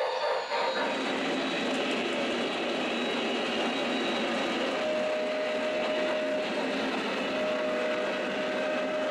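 O gauge model steam train running on its track with a steady rolling noise. A rhythmic pulsing fades out under a second in, and two long steady tones sound, one near the middle and one near the end.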